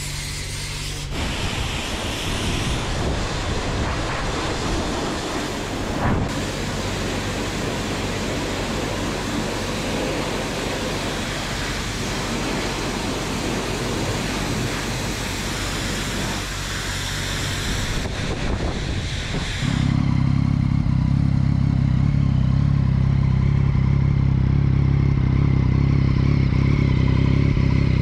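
Pressure-washer spray hissing steadily as the lance rinses foam off a motorcycle. About twenty seconds in it gives way to the Yamaha MT-09's three-cylinder engine idling steadily, louder than the spray.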